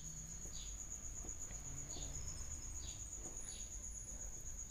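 Faint, steady high-pitched insect trill, with a few short falling chirps scattered through it over a low background hum.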